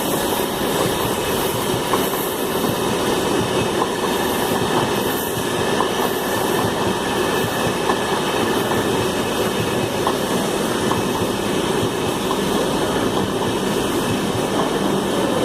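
Tejas Express train running on the rails: a steady rumble and hiss of wheels on track, with faint clicks about once a second.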